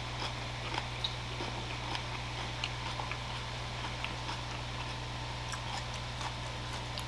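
Chewing food close to the microphone: small soft clicks and mouth sounds scattered through, over a steady low hum.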